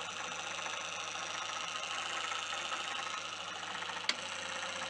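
Lucas motorcycle dynamo running as a motor off a 6-volt battery charger turned up to its high charge setting: a steady whirring hum. The bearings are not entirely silent, a noise the owner is unsure about and suspects may come from the bearings or the brushes. One short click about four seconds in.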